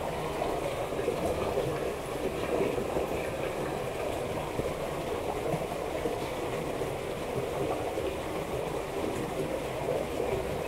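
Steady rushing of water flowing through a stony ditch, running high after a big flood.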